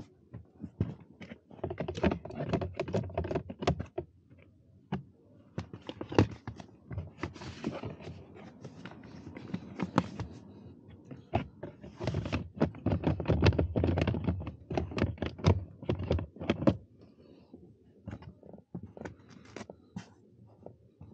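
Plastic clicks, knocks and thunks from hands working the A/C blower motor in its plastic housing under the dashboard, coming in irregular clusters with short pauses between.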